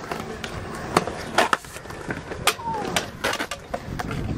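Stunt scooter wheels rolling over concrete, broken by several sharp knocks and clatters as the rider falls and the scooter hits the ground.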